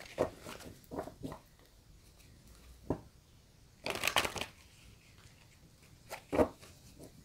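A tarot deck being shuffled and handled by hand: short papery rustles and slaps of cards, with a longer riffle of shuffling about four seconds in.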